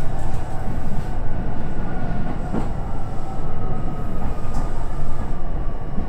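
Train running along the track, heard from inside the carriage: a steady low rumble with a faint whine slowly falling in pitch, and a few light clicks.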